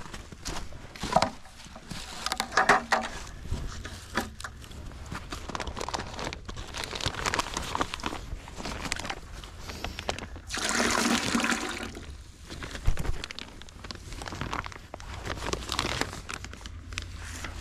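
Maple sap poured from a plastic sap bag into a bucket, one splashing pour of about a second and a half partway through. Before and after it come crinkling of the plastic bag and scattered handling and rustling noises.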